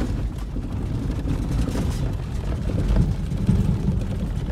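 Inside the cabin of an off-road SUV driving over a washboard gravel road: a steady low rumble of tyres and suspension with a dense, continuous rattle from the corrugations.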